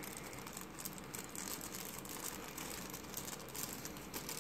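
Faint crinkling of a thin clear plastic bag being handled, in scattered light rustles.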